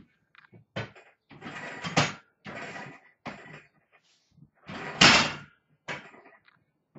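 Loaded barbell racked onto the power rack's hooks after a set of squats: a metal clank about two seconds in and a louder knock about five seconds in, among bursts of hard breathing.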